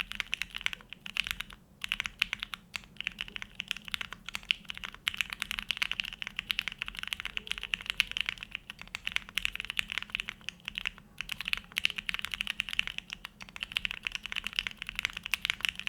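Fast, continuous typing on a Neo65 mechanical keyboard built plateless with no foam, fitted with hand-lubed Gateron Box Ink Black V2 linear switches and JTK FC Classic and GMK Grand Prix keycaps: rapid clacks of keys bottoming out, broken by a few brief pauses.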